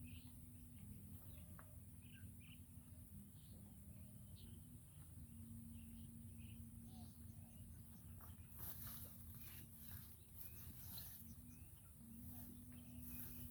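Faint outdoor ambience of scattered bird chirps and insect calls over a steady low hum, with a run of short rustling clicks a little past the middle.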